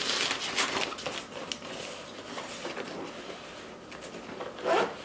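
Fabric of an insulated cooler bag rustling and scraping as its lid flap is folded over and pressed closed by hand, busiest in the first second or so.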